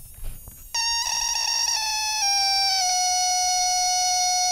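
Apple PowerBook 2400c giving off a high-pitched electronic tone as its power adapter is plugged in: a click, then a steady whine that steps down in pitch a few times before holding and cutting off suddenly. A weird noise from a machine that gets power but will not start.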